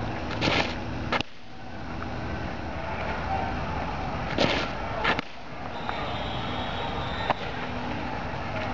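Two softball curveball pitches: each time a brief rush of noise at the windmill delivery, then about half a second later a sharp pop of the ball into the catcher's mitt, over steady outdoor background noise.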